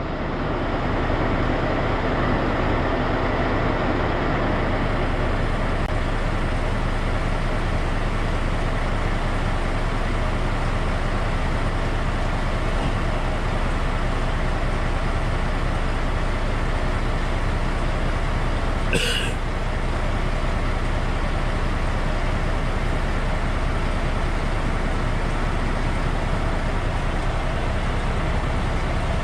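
Log truck's diesel engine running with a steady rumble, with a brief sharp sound about two-thirds of the way through.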